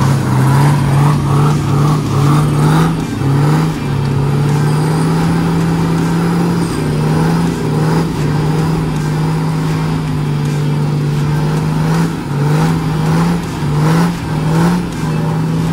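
Off-road 4x4's engine revving hard under load while it claws up a steep slope: the revs surge and drop in quick repeated bursts, then hold high for several seconds, a pattern that repeats a few times.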